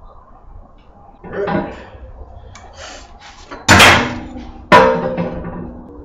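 Metal clanging against a sheet-steel box. A softer clang comes about a second and a half in, then a few short rattles. Two loud ringing clangs follow about a second apart, near four and five seconds in.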